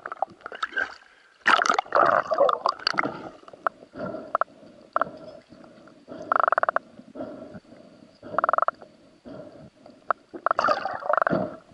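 Water sloshing, splashing and gurgling heard from just under the surface through an underwater camera, with scattered knocks. The loudest splashes come in the first three seconds, and there are two short buzzing bursts about six and eight and a half seconds in.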